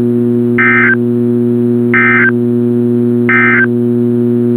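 NOAA Weather Radio SAME end-of-message code closing the Required Weekly Test: three short bursts of high-pitched digital data tones, about 1.3 seconds apart. A steady low electrical hum runs underneath.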